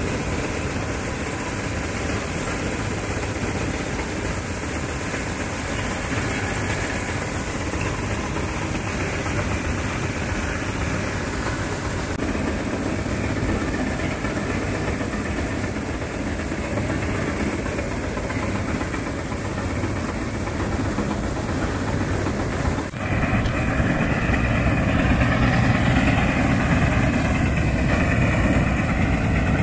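Bizon Super Z058 combine harvester at work cutting rapeseed: the steady drone of its diesel engine with the header, reel and threshing gear turning. About three quarters of the way through it changes to a slightly louder sound of the same combine working, heard from in front of the machine.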